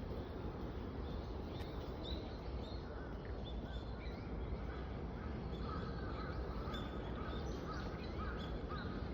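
Crows cawing, with a run of short repeated caws about two a second from about halfway through, over a steady outdoor background noise; higher, thinner bird calls are scattered throughout.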